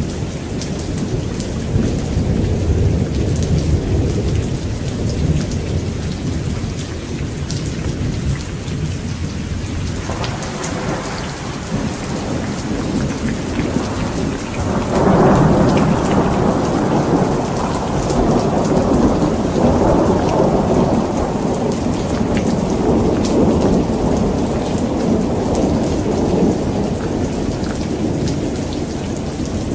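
Steady rain with rolling thunder: a low rumble in the first few seconds, then a louder, longer rumble starting about halfway through that dies away near the end.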